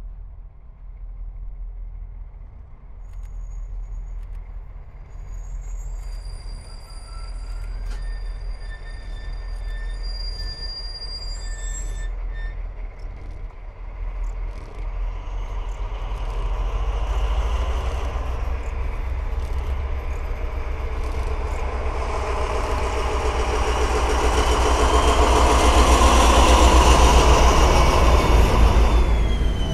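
A diesel-hauled train of withdrawn coaches approaching and passing, its rumble growing steadily louder to a peak near the end, with a falling tone as it goes by.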